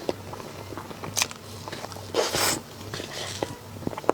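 Close-miked eating of sweet desserts: small clicks of biting and chewing, with one louder, longer crunching bite about two seconds in.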